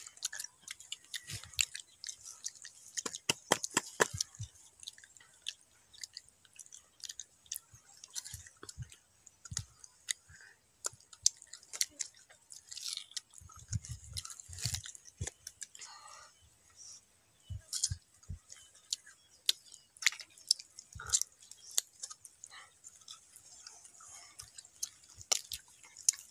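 Close-up biting and chewing of crisp green mango: irregular crunches and mouth sounds, one after another.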